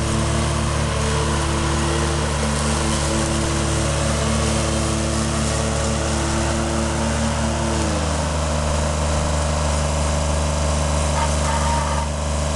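Kubota B7100HST compact tractor's three-cylinder diesel engine running steadily as the tractor drives on grass. About eight seconds in, its pitch drops as the engine slows, and it runs on steadily at the lower speed.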